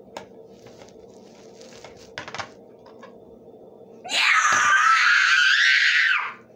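A few faint knocks and clicks, like plastic toy dishes being handled, then about four seconds in a loud, high-pitched wavering scream from a child's voice lasting about two seconds.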